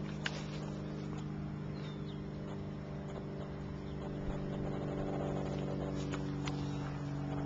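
A steady low machine hum made of several even tones, growing a little louder about halfway through, with a few light clicks.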